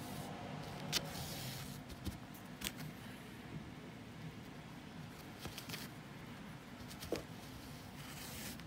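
Needle and wool yarn drawn through a kilim's weave during hand re-weaving: soft rustling and scratching of fibre, with a few sharp clicks, over a low steady hum.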